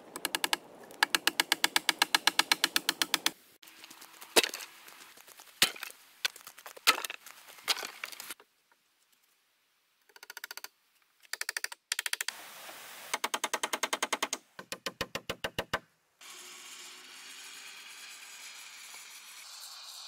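Rapid runs of sharp knocks, about ten a second, like sped-up hammering on log-cabin timbers, broken by abrupt cuts and a few single heavy knocks. A steady hiss takes over in the last few seconds.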